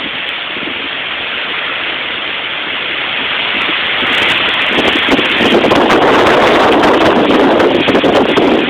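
Hurricane wind blowing hard and buffeting the phone's microphone, with no steady tone; it swells into a stronger gust about halfway through.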